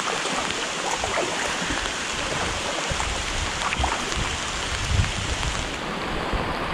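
Steady hiss of rain falling on the creek's surface, with the splashes and drips of a kayak paddle dipping in.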